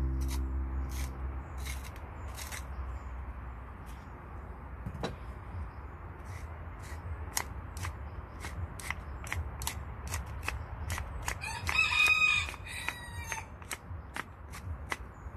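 A rooster crowing about twelve seconds in, the loudest sound here, over scattered sharp clicks.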